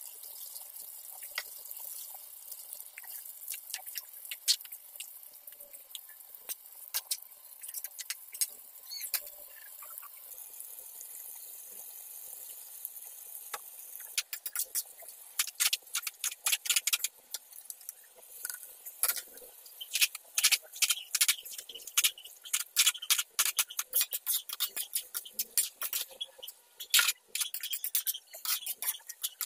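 Noodles cooking in sauce in a metal wok, with a steady sizzling hiss. From about halfway, a spatula taps and scrapes quickly and repeatedly against the wok as the noodles are tossed.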